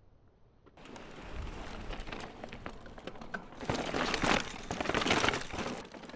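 Mountain bike riding over a dirt trail: tyres crunching and crackling on loose ground, with many small rattling clicks. It starts about a second in and gets louder from about three and a half seconds, then eases off near the end.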